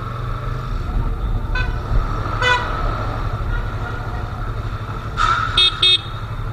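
Yamaha R3's parallel-twin engine running under a steady low rumble while riding, with a few short vehicle horn toots, two quick beeps close together near the end.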